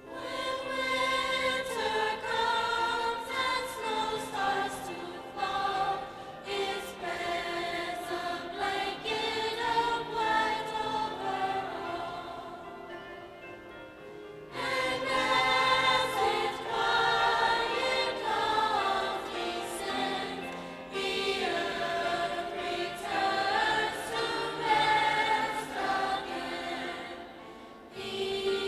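High school concert choir singing in several voice parts. The singing swells in suddenly at the start and again about halfway through, after a quieter passage.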